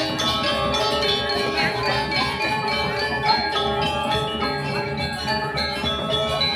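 Balinese gamelan music: metallophones ringing many overlapping sustained tones, with no break.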